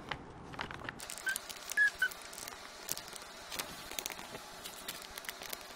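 Pen writing on paper: a scatter of faint scratches and light taps, with a few tiny squeaks about a second and a half in.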